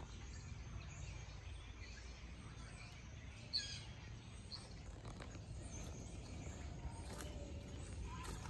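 Quiet woodland ambience: a steady low rumble with a few faint bird chirps, one short sharp chirp about three and a half seconds in.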